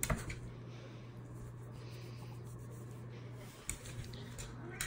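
Steady low hum with soft rubbing and rustling, and a few sharp clicks: one at the start and a couple near the end.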